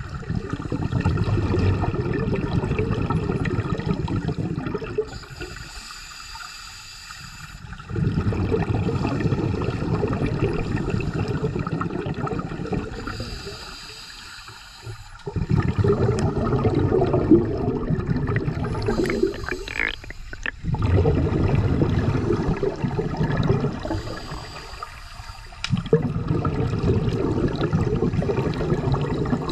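Scuba diver breathing underwater through a regulator: about five long exhalations, each a rumble of bubbles lasting several seconds, with short quieter inhalations between them in which the regulator hisses faintly.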